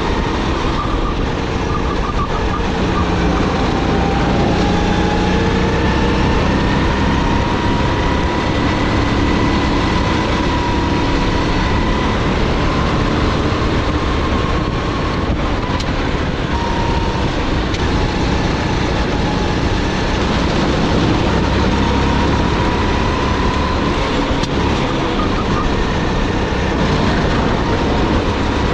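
Sodi GT5R rental kart's 270 cc, 9 hp engine running hard under the seat, its pitch slowly rising and falling as the kart speeds up and slows through corners, over a steady rush of noise.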